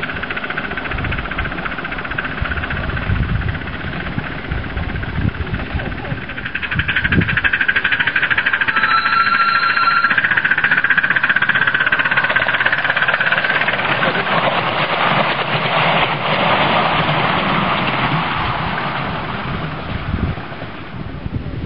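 Miniature live-steam locomotive running past close by with a train of ride-on passengers, its wheels rumbling on the rails and its exhaust beating rapidly. A short high whistle sounds about nine seconds in.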